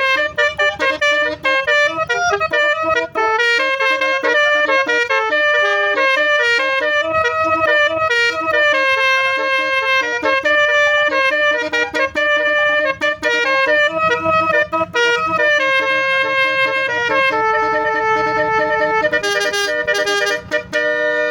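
Basuri multi-note air horn playing a melody, its reedy notes stepping quickly one after another and held longer near the end, over a faint low rumble.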